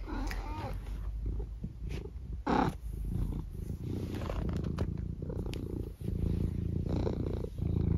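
Long-haired tabby cat purring steadily, close up, while being stroked, with a couple of brief breaks near the end.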